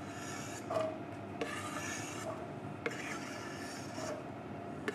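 Chef's knife blade scraping diced onion across a wooden chopping board into a frying pan, in about three scraping strokes with small knocks between them.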